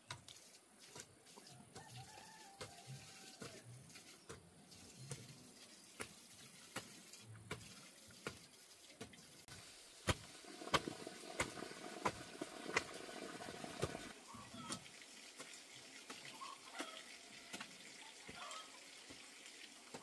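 Chickens clucking, heard mostly in the last few seconds, with scattered sharp knocks or taps throughout.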